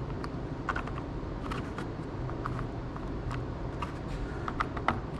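Bolts being popped into holes drilled in a plastic bucket lid: scattered light clicks and taps, irregularly spaced, over steady low background noise.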